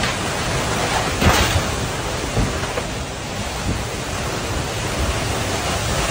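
Tornado wind and rain making a steady, dense rushing noise, with a few brief sharper surges, the strongest about a second in.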